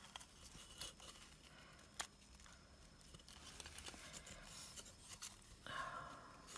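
Faint rustling of metallic-edged ribbon as it is wound round and threaded through a wooden slatted bow maker, with a few soft clicks.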